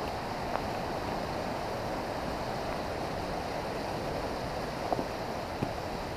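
A river rushing steadily, with a few faint ticks about half a second in and again near the end.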